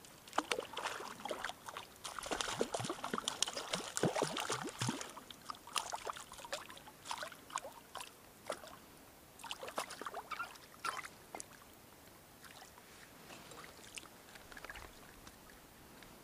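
Water splashing and sloshing as a hooked perch thrashes at the surface and is drawn in close, with a hand dipping into the water. The splashes are densest for the first five seconds, then come sparser and die away near the end.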